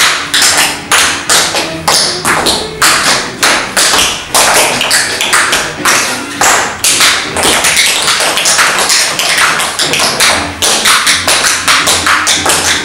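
Two dancers' tap shoes striking a wooden parquet floor, sharp metallic clicks in quick rhythmic runs.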